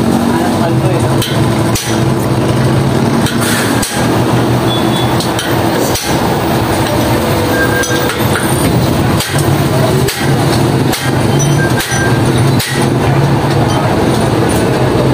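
Steel hammer blows on a punch driven against a seized motorcycle rear axle, about one strike a second, trying to knock the dry, stuck axle out of the wheel hub. A steady mechanical drone runs underneath.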